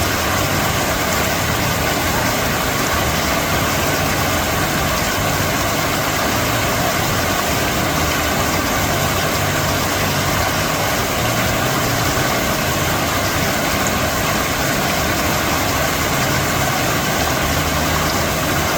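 Water fountain splashing steadily, an even rush of falling water that does not change.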